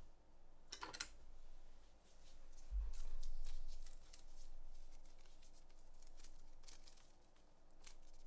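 Hand leatherworking noises: a quick cluster of sharp clicks about a second in, then light scratching, rustling and soft bumps as material and tools are handled.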